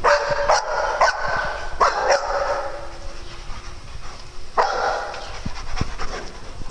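Dogs barking in play: a quick run of about five sharp barks in the first two and a half seconds, then one more bark a little past halfway.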